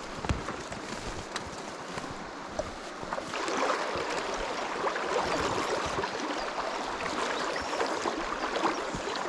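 River water rushing and splashing, growing louder about three seconds in.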